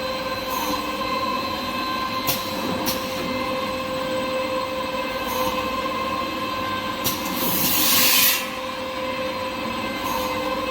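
Kitchen towel paper converting machine running with a steady whine, sharp clicks every second or two, and a loud hiss lasting about a second some seven seconds in.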